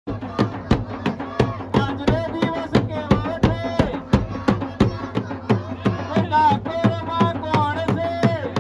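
Indian festival song with a fast, steady drum beat under a wavering sung melody, cutting in suddenly from silence.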